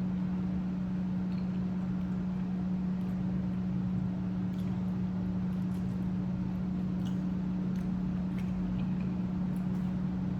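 A steady low hum, with a few faint clicks and smacks of eating seafood.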